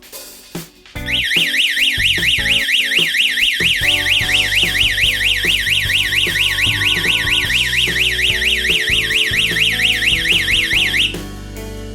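Security alarm system's electronic siren sounding a fast, loud warble that starts about a second in and cuts off suddenly after about ten seconds, the system's automatic ten-second alarm cycle ending.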